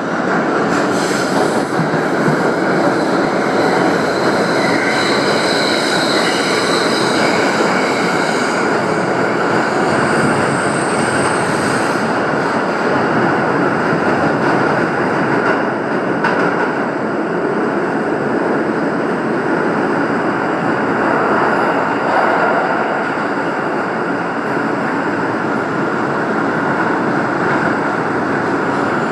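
New York City subway train running, heard from inside the car: a steady rumble, with high-pitched wheel squeal from about a second in until about twelve seconds in.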